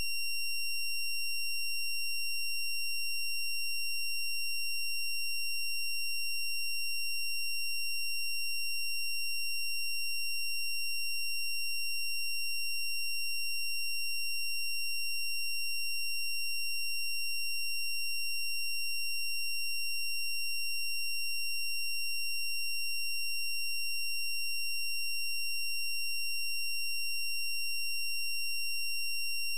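A steady, unbroken high-pitched electronic tone with fainter higher tones above it, holding one pitch and level throughout.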